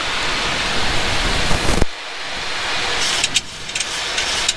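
Steady rush of airflow and engine noise in a Boeing 737-800 cockpit on approach. A louder, deeper rush cuts off abruptly about two seconds in, and a steady hiss carries on after it.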